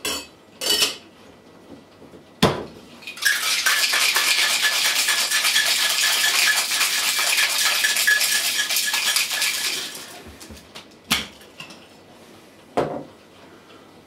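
Whisky sour being shaken in a Boston shaker, a steel tin over a mixing glass. A few clinks and one sharp knock as the shaker is closed, then ice rattling fast and hard inside it for about seven seconds. Two sharp knocks follow as the tin is struck to break the seal.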